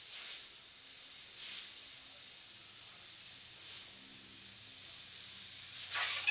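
Airbrush hissing as it sprays paint onto a T-shirt, swelling in short spurts every second or two, with the loudest spurt just before the end.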